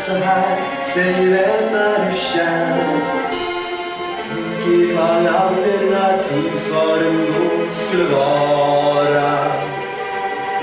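A song with instrumental accompaniment, its voices holding long notes that step from pitch to pitch.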